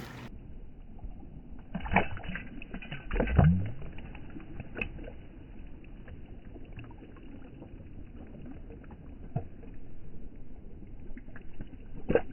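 Water splashing and sloshing played back in slow motion, so it sounds low-pitched and dull: a cutthroat trout thrashing at the surface, with two louder splashes about two and three seconds in and smaller drips and ticks after.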